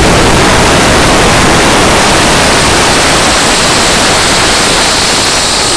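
Thousands of jet balloons released at once, air rushing out of them as they fly, in a loud, steady hiss that eases slightly near the end.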